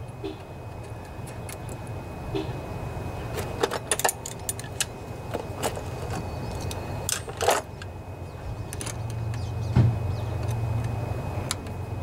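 Scattered light metallic clicks and clinks of small nuts, bolts and a wrench being handled as new hardware goes onto a riding mower's battery terminal, over a steady low hum.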